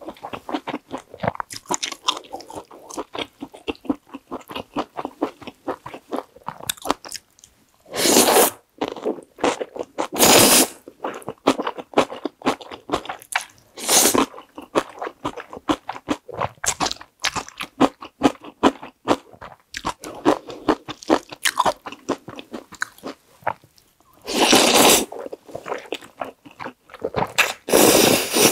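Close-miked chewing of crunchy aged kimchi and thick, creamy stir-fried ramen, with steady wet crunches and mouth clicks. About five loud slurps of noodles break through at intervals.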